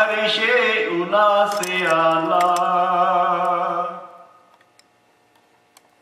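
Male voice reciting a naat unaccompanied, drawing out long sung notes with a wavering pitch. The line dies away about four seconds in.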